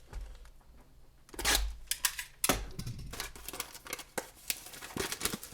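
A cardboard trading-card blaster box being handled: a brushing swish, a thump as it is set down or knocked, then a run of light clicks and taps of fingers on the box.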